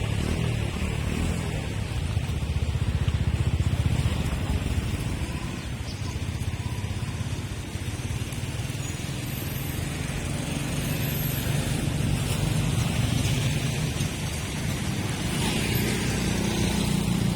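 City street traffic: a steady mix of motorbike and car engines running and passing, with the loudness swelling and easing slightly as vehicles go by.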